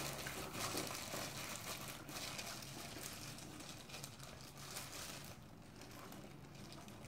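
Clear disposable plastic gloves crinkling faintly as rice mixed with pork cartilage is squeezed into a ball by hand, fading to faint chewing near the end.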